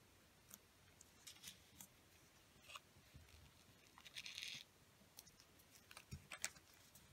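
A sheet of paper being folded and creased by hand: short crisp crackles as fingers press the folds flat, a half-second sliding rustle about four seconds in, and a sharper crackle with a soft thump near the end.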